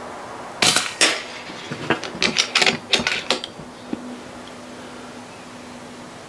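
A string of sharp metallic clicks and clacks from an FX Crown PCP air rifle being handled and cocked: two loud ones about half a second apart near the start, then a quicker cluster over about a second and a half.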